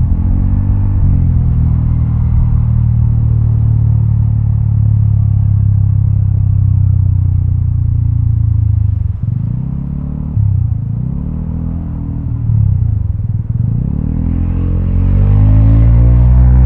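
Vespa automatic scooter's single-cylinder engine running through a Prospeed aftermarket exhaust. It holds a steady cruise, then the throttle is rolled off and back on several times, dropping and raising the revs, and it accelerates with climbing revs near the end.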